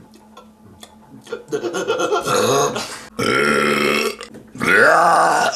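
A person burping loudly, three long burps one after another: a softer one from about one and a half seconds in, then two loud ones, the last rising and falling in pitch.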